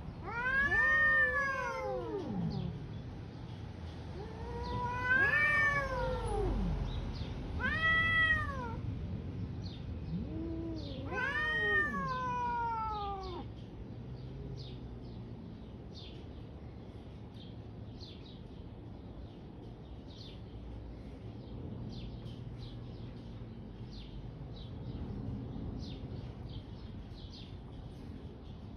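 Domestic cat yowling: four long, drawn-out wails in the first half, each rising then falling in pitch, the threat calls of a cat standoff. After that only faint low sounds.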